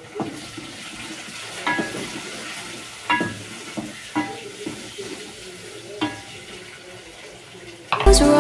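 A wooden spoon stirs chopped tomatoes in a pot over a faint sizzle, knocking against the pot several times with short metallic rings. Loud background music comes in near the end.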